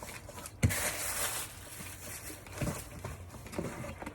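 Packaging being handled during an unboxing: a sharp knock about half a second in, then about a second of rustling, and a few softer knocks later on.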